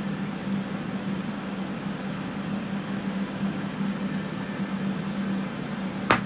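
Electric ventilation fans running steadily with a low hum, loud enough to fill the room. One sharp click near the end.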